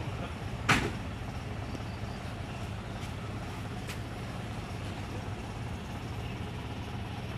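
Truck engine idling steadily, with a single sharp knock about a second in.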